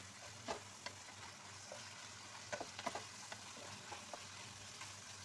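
Chicken pieces sizzling steadily as they fry in a pot, with a wooden spatula stirring them and clicking against the pot several times, a cluster of knocks about three seconds in.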